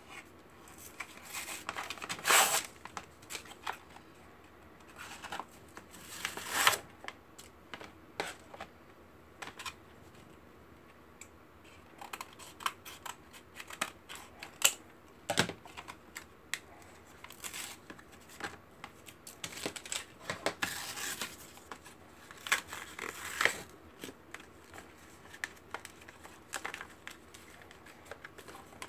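Clear plastic blister packaging and its cardboard backing crinkling and tearing as foam darts are pried out of their card, in irregular rustles with scattered sharp clicks; the loudest bursts come about two seconds in, near seven seconds, and from about twenty to twenty-three seconds.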